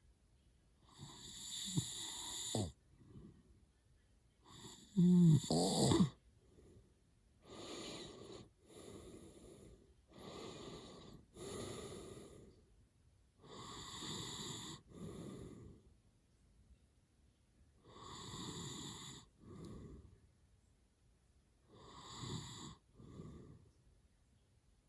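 A man snoring hard in his sleep: slow, noisy breaths in and out, one every second or two, the loudest about five seconds in.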